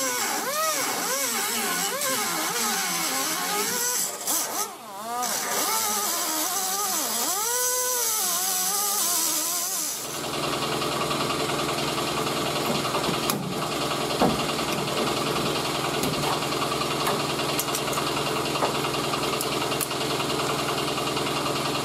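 Air die grinder with a cut-off wheel cutting rusted wheel-arch sheet metal, its whine dipping and recovering about twice a second as the wheel loads up in the cut, easing off briefly about 5 s in. About 10 s in it gives way to a steady, even mechanical hum.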